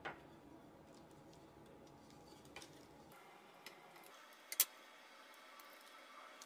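A few light clicks and taps over faint room noise as a glue-soaked strip of super cloth is wrapped and pressed by hand and with a wooden stick on a wooden board. One click comes right at the start, and the sharpest, a quick double tap, comes a little past halfway.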